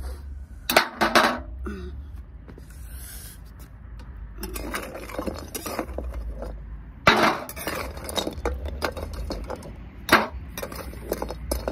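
A metal spatula scraping and clinking in an iron wok as hard pieces of roasted multani mitti (fuller's earth) are lifted out and dropped onto a steel plate. The sharp clinks come at irregular intervals, the loudest about a second in, around seven seconds and around ten seconds.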